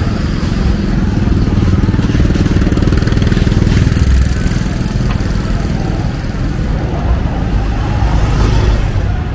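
Busy city street traffic, with motorbike engines running and passing close by in a steady rumble.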